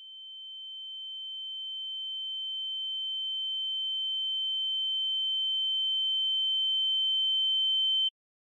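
A single steady high-pitched electronic tone that swells slowly louder for about eight seconds, then cuts off abruptly.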